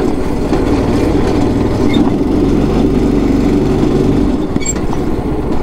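Small 5 hp, 126cc single-cylinder go-kart engine running as the kart is driven. Its low hum drops out about four seconds in.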